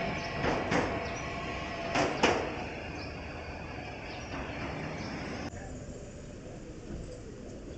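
Tram wheels clacking over rail joints in two pairs of knocks, near the start and about two seconds in, over a fading rolling rumble. About two-thirds of the way through, the sound drops abruptly to a quieter, even background.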